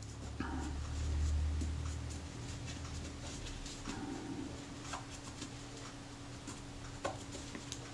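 Faint scratchy rubbing with a few light clicks as a cotton-wool swab cleans a small brass shutter ring from a Kodak Retina IIIS camera. A low rumble runs through the first two seconds or so.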